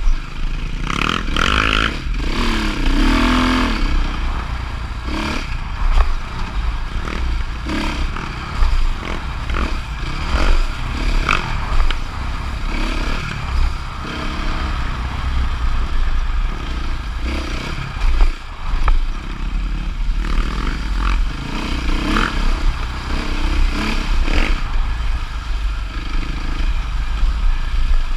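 Dirt bike engine revving up and down as it is ridden along a bumpy trail, with heavy wind rumble on the bike-mounted microphone and scattered knocks and clatter over bumps.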